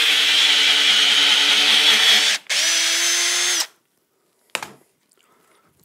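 Cordless drill boring into a block of wood, its battery starting to go: it runs steadily for about two seconds, stops for a moment, runs again for about a second and then stops. A single knock follows about a second later.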